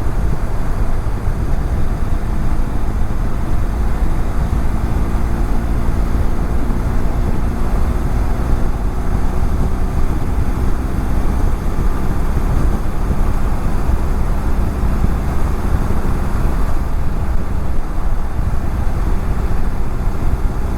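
Steady wind buffeting on a helmet-mounted camera's microphone while riding a BMW F700GS motorcycle at highway speed. The engine's even drone sits faintly underneath.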